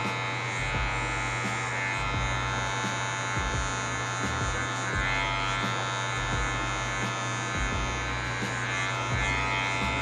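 Electric hair clipper running with a steady buzz as its blade cuts short hair at the nape, blending a fade.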